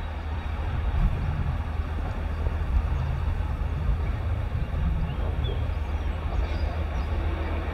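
A train approaching in the distance: a steady low rumble.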